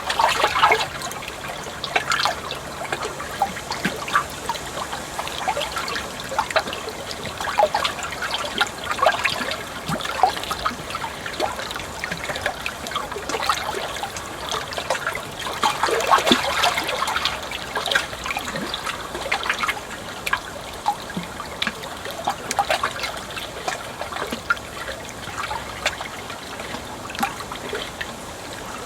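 Water trickling and gurgling steadily, with many small irregular bubbling splashes over a continuous flowing rush.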